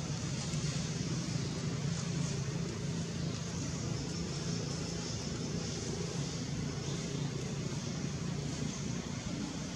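A steady low hum under an even hiss, unbroken throughout, like a running engine or passing traffic heard at a distance.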